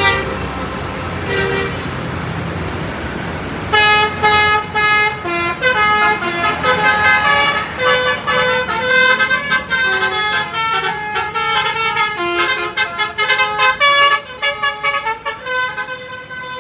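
Bus telolet horn, a multi-tone basuri horn, playing a fast melody of stepped notes from about four seconds in until the end. Before that there are a couple of short horn notes over bus engine and traffic noise.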